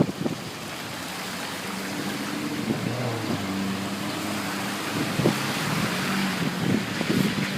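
A car driving through a flooded street, its engine humming under a steady rush of water thrown up by the tyres.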